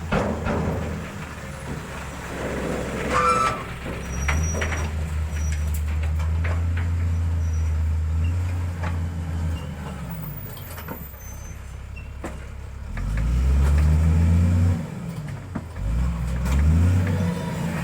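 Heavy diesel engine of road-construction machinery running, its pitch rising and falling as it is revved up and eased off several times, loudest about three-quarters of the way through, with scattered knocks.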